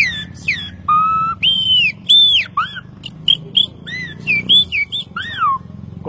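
A man whistling through his fingers in imitation of the song of the campo troupial (sofrê): a few quick falling slurs, then a string of clear, varied whistled notes, some held level and some arching up and down.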